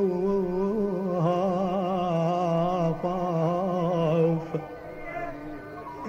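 Arabic song: a long held, wavering note over accompaniment, which drops away about four and a half seconds in.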